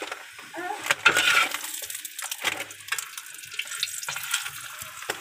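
Oil sizzling and crackling under a leftover rotli shallow-frying on an iron tawa, the rotli being fried crisp; the sizzle is loudest about a second in.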